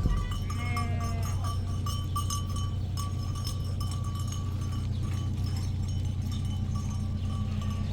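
Livestock: a sheep bleats once under a second in, amid scattered clinks and taps, over a low steady rumble.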